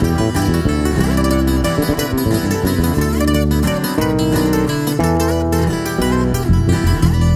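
Instrumental break of a Mexican corrido: acoustic guitars picking a busy melody and strumming over a bass guitar, with no singing.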